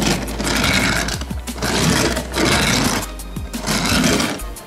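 Plastic wheels of a small Dinomecard Archelon toy car rolling across a board surface as it is pushed by hand, a rasping roll that swells and fades three times, over background music.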